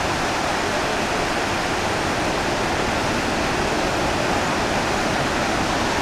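Chachai waterfall in heavy flow: a steady, even rushing of falling water, unbroken throughout.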